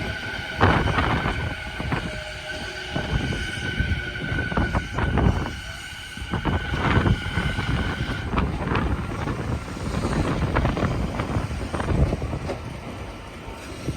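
Kawagoe Line train running slowly over a river bridge, with a steady high tone that stops about eight seconds in and scattered short knocks. Strong wind gusts buffet the microphone throughout.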